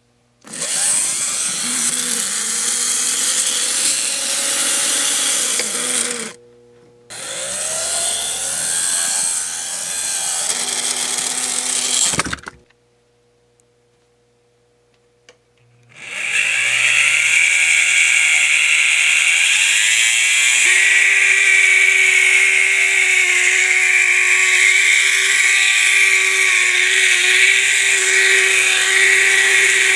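Lindberg HO switcher locomotive's electric motor and belt-and-gear drive running with a loud whirring grind; the motor bearings are worn out. It runs in two spells of about five seconds that stop abruptly, then after a silent pause runs steadily with a high, even whine.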